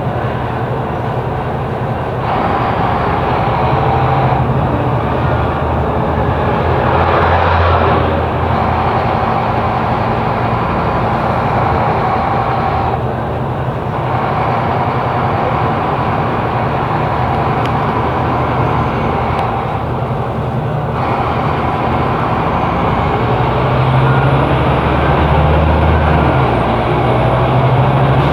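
Scania K270 bus diesel engine running as the bus drives. Its sound shifts several times as it changes load and speed, and the engine note grows stronger near the end.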